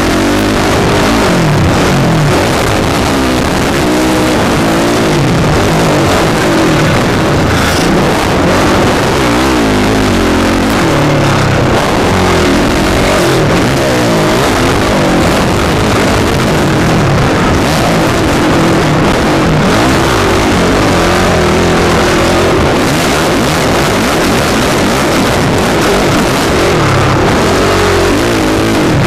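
Motocross dirt bike engine heard close up from the bike's onboard camera, revving hard and falling back over and over as the rider works the throttle and gears around the track.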